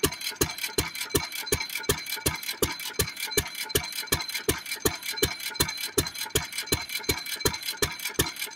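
1917 Fairbanks Morse Model Z 3 hp single-cylinder engine running steadily under its throttle governor, firing every cycle at about four exhaust beats a second with lighter mechanical clicks between the beats. The rhythm is even and unbroken, the sign of a throttle-governed engine rather than a hit-and-miss one.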